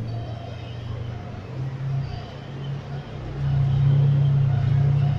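A heavy vehicle's engine running with a steady low drone that grows louder about three seconds in.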